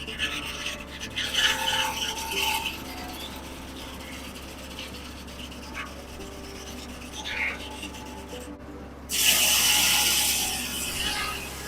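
1950 Corley sawmill running with a steady low hum, with bursts of rasping noise in the first few seconds and a louder burst that starts sharply about nine seconds in.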